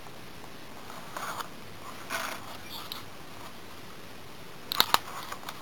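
Stiff cardstock pages of a handmade pop-up book being handled and turned: soft rustles, then two sharp snaps near the end as the page flips over, followed by a few light ticks.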